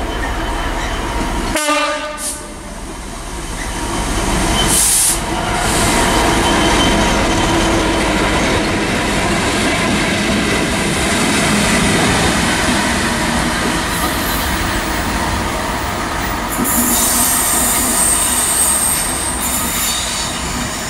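Class 66 diesel locomotives running light in convoy, their two-stroke V12 engines droning steadily as they pass. A short horn blast sounds about two seconds in, and a high-pitched squeal rises for a few seconds near the end.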